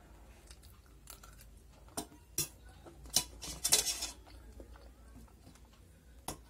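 Stainless-steel spoon and fork clinking and scraping against a steel plate: a few sharp clinks two to three seconds in, a quick cluster around four seconds as the spoon is set down on the plate and the fork taken up, and one more clink near the end.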